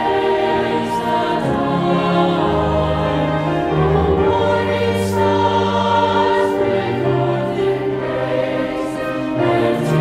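Choir singing a slow carol in long, held chords, with instrumental accompaniment sustaining low notes underneath.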